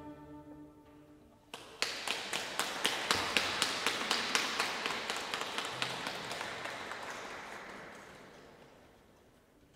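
The string orchestra's last chord dies away, then about a second and a half in a small audience breaks into applause, the claps thinning and fading out near the end.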